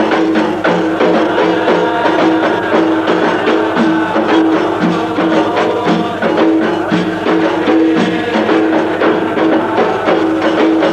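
Qasidah music: hand drums beating a fast, steady rhythm over a steady hum.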